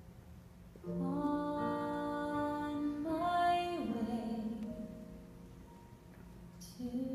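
Grand piano playing sustained chords in a gap between sung phrases: a chord about a second in, new chords near three and four seconds, then dying away before another chord comes in near the end.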